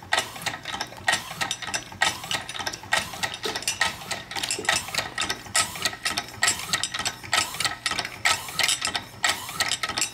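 Small homemade rotary-valve engine running slowly on compressed air, throttled down to low speed: a steady rhythm of sharp metallic clicks, roughly two or three a second.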